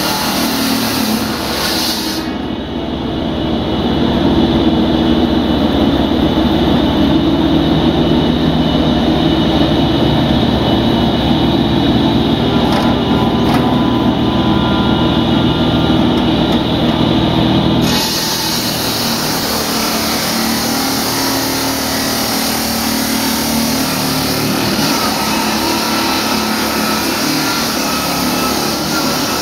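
An engine running steadily and loudly, its note holding even throughout.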